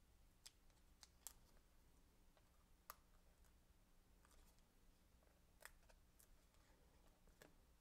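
Near silence, broken by a handful of faint, scattered ticks and soft paper rustles from fingers peeling the release-paper backing off foam adhesive squares.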